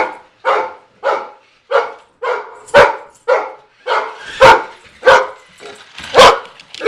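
Labrador retriever barking over and over in an even rhythm, about two loud barks a second.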